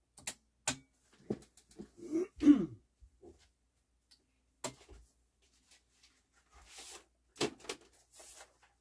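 Scattered light clicks and handling noises, with a short throat clearing about two and a half seconds in.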